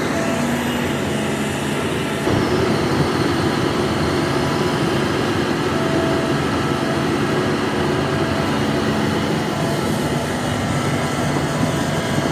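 Hitachi ZAXIS 350H excavator's diesel engine running steadily under working load, a little louder from about two seconds in.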